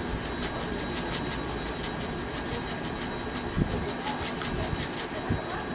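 Crinkling and rustling of clear disposable plastic gloves as a gloved hand holds and tops a waffle: many small irregular crackles over a steady low background rumble.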